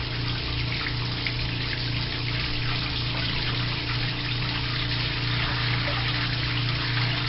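Kenmore 80 Series top-loading washing machine running: a steady motor hum with water rushing and splashing in the tub as it moves from agitate to drain.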